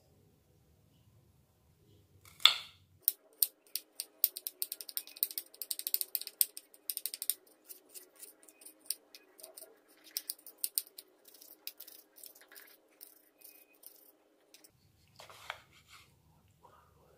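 Kitchen knife chopping garlic and shallots on a shallow mortar dish: quick, irregular taps of the blade against the dish, with a louder knock about two and a half seconds in. The taps thin out and turn sparser near the end as a tomato is cut.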